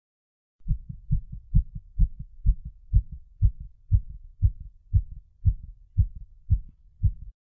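Heartbeat sound effect: a fast, even train of low thumps at about two beats a second that starts under a second in and cuts off suddenly near the end.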